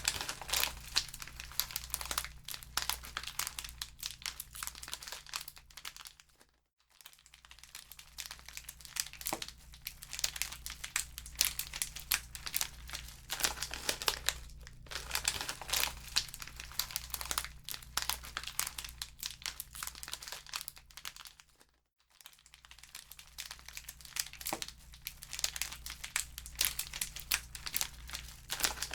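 Wood fire crackling in a fireplace: dense, irregular pops and snaps over a steady low rumble. The sound fades almost out and back in twice, about 7 seconds in and again about 22 seconds in.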